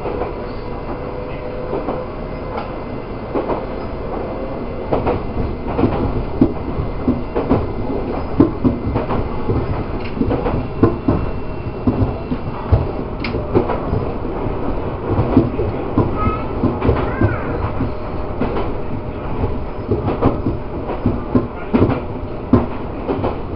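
Iga Railway electric train running along the track, heard from inside the front car: a steady rumble from the wheels with many irregular knocks and clacks over the rails.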